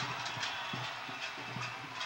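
Basketball game noise in a gymnasium: a steady crowd din with a quick run of knocks and thuds from players' feet and the ball on the hardwood court.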